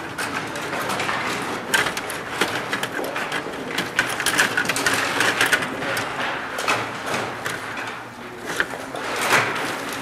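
Clatter of a Stiga Play Off table hockey game in play: metal control rods sliding and twisting, and plastic players and puck clacking against each other and the boards, in a quick run of irregular clicks and knocks.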